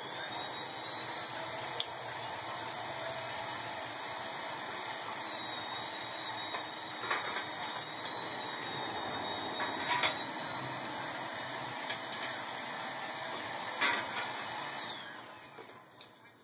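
A steady hissing drone with a thin high whistle runs on, then fades out near the end. Over it come a few sharp metal clicks and clinks as a hand wrench works on the bicycle's crank.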